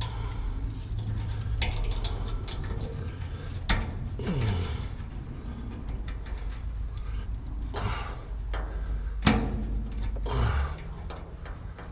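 Plastic fuel line fitting and hoses being handled and pushed onto the fuel sending unit on top of an RV's fuel tank: scattered clicks and knocks, the two sharpest about four and nine seconds in. A steady low hum runs underneath and stops near the end.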